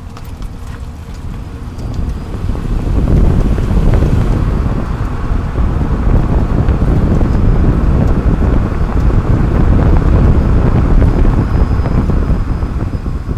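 Road and wind noise under a 30-series Toyota Prius on the move, picked up by a camera mounted beneath the car. It swells about two seconds in, stays loud and eases off near the end.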